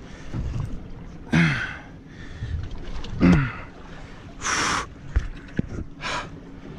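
A man grunting and blowing out hard with effort while fighting a big fish on a heavily bent rod: two short grunts falling in pitch, then two sharp breathy exhales.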